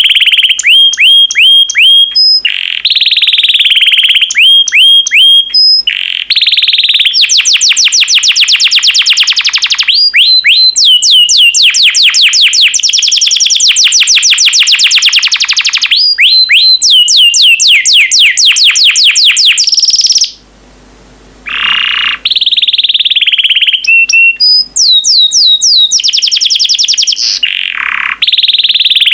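Yellow domestic canary singing loudly: long phrases of rapid, repeated downward-sweeping notes and fast trills, with a short pause about twenty seconds in.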